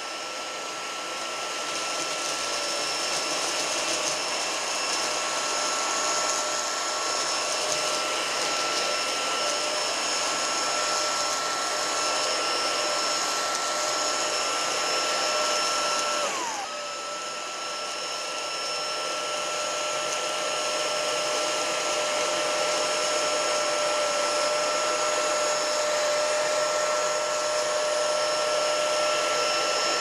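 Homeika P10 cordless stick vacuum running steadily with a high, even motor whine while its floor head passes over carpet, picking up crushed cracker debris. About 16 seconds in the pitch briefly drops and the sound dips, then it runs on steadily at the same pitch.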